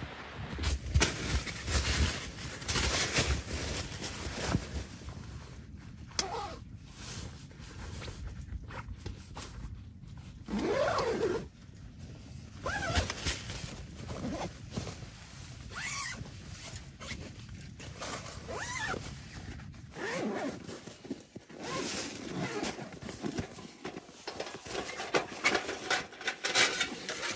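Tent fabric rustling and a zipper being worked as a person crawls into a tent and moves around inside, with gear shuffled about. Near the end a soft carry bag is handled as a folding metal stove is drawn out of it.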